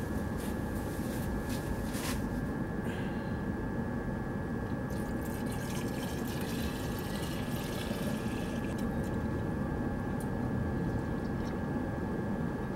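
Green antifreeze coolant being poured from a jug into a car's coolant filler neck, a steady stream of liquid pouring in, over a steady hum with a thin high whine.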